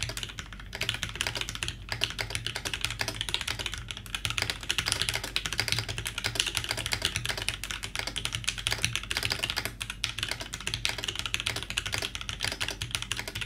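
Fast, continuous typing on a polycarbonate-cased TGR Alice mechanical keyboard built with Tangerine linear switches on 60 g springs and a copper plate: a dense, unbroken stream of key clacks.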